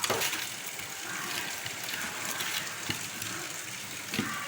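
Pork and chicken sizzling in a frying pan, a steady hiss with a few sharp clicks and pops.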